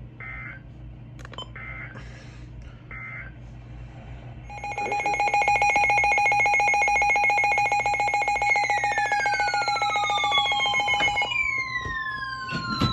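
Emergency Alert System signalling between broadcast warnings. It opens with three short warbling data bursts (the SAME header), then a loud, harsh buzzing alert tone starts a few seconds in. From about halfway, repeated falling siren-like sweeps join it, and near the end a steady single tone.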